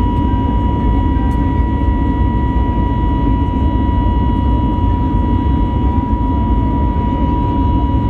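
Airbus A321neo's turbofan engines heard inside the cabin while the jet climbs through cloud after takeoff. A steady, heavy rumble carries a constant high-pitched whine.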